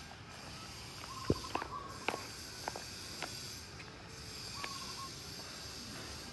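Quiet outdoor ambience: a steady high hiss, a few short chirping tones and a couple of sharp taps.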